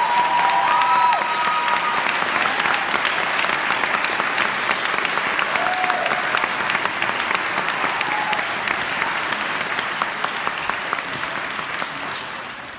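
Audience applauding, with a few whoops in the first two seconds; the clapping dies away near the end.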